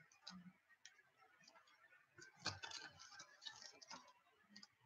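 Near silence, with a few faint clicks and taps about two and a half seconds in and a couple more near the end: trading cards being handled and set down on a table mat.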